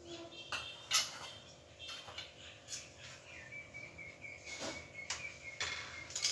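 Scattered faint clicks and taps of a spoon and containers being handled while sauces are spooned onto raw chicken, with a faint thin high tone held through the second half.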